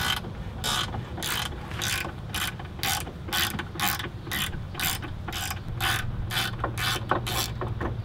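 Hand ratchet clicking in repeated strokes, about two a second, as the socket backs out a T50 Torx bumper mounting bolt; near the end the strokes get shorter and quicker.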